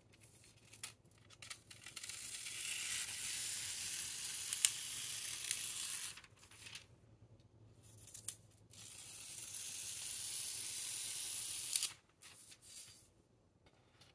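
Metallic transfer foil being peeled off a printed sheet: two long stretches of crackling hiss, the first starting about two seconds in and the second about nine seconds in, with short rustles and clicks of handling between and after.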